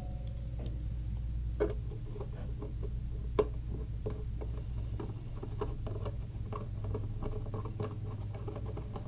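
Hand screwdriver driving small screws through a plastic lens into the light housing: a run of light clicks and ticks, denser in the second half, with two sharper taps in the first few seconds, over a steady low hum.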